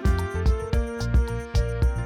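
Background music with a steady beat: notes from pitched instruments over a regular pulse of about two strokes a second.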